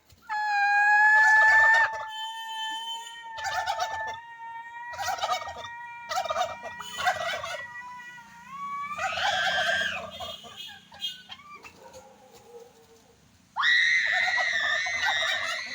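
Turkeys gobbling: a loud drawn-out call at the start, then several short rattling bursts, and another loud call near the end.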